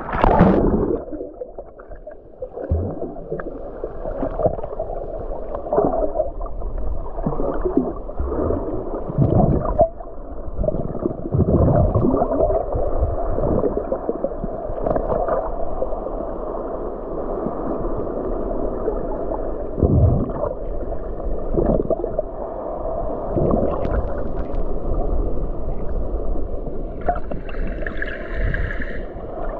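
Muffled churning seawater, with the treble cut off and irregular surges throughout, and a sharp knock at the very start.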